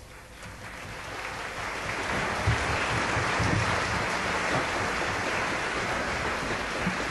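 Live concert audience applauding, building up over the first two seconds and then holding steady.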